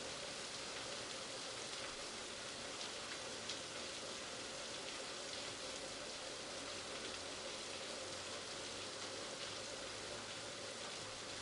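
Steady heavy rain falling: an even hiss of drops, with a few sharper drop ticks about three seconds in.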